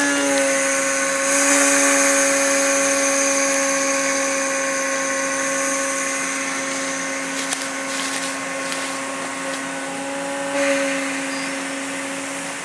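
Southern Pacific 4449's steam whistle blowing one long, steady chord over a constant hiss, with a brief swell near the end.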